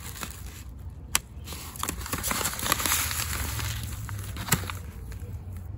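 Paper seed packet crinkling and rustling as it is handled and opened, with a few sharp clicks, over a steady low rumble of wind on the microphone.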